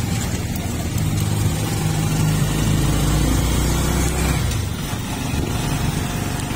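A motor vehicle's engine running. Its low hum swells about a second in and eases off again after about four seconds, over a steady hiss.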